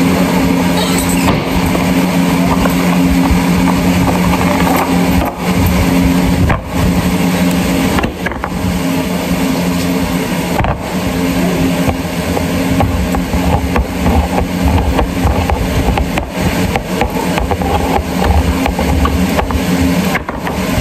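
Loud steady hum of a running electric motor under a rushing air noise, with light clicks and knocks as items are handled on the counter.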